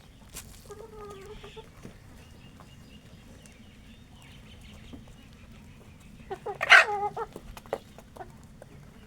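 Free-range chickens calling: a short clucking call about a second in, then a louder call about two-thirds of the way through, with faint scattered ticks between.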